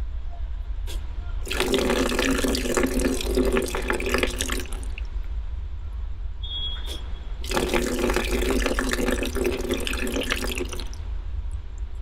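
12 V DC brass solenoid valve on a barrel spigot, cycled by a relay: a click, then water gushing out of the open valve for about three seconds before it shuts off. This happens twice.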